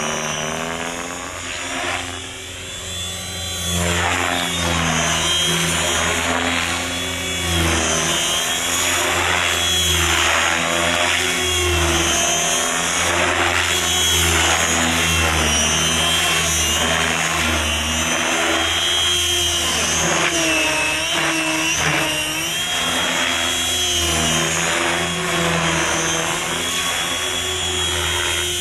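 Electric RC helicopter (Compass Atom 500 on a 6S pack) in flight: the motor and gear whine and the rotor blades swell and sag in pitch over and over as it manoeuvres, dipping briefly about two seconds in.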